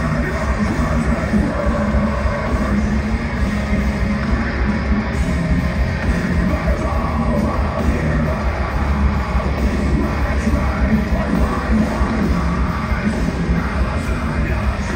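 Deathcore band playing live through a venue PA: heavy distorted guitars over fast, dense kick-drum hits, with a vocalist screaming.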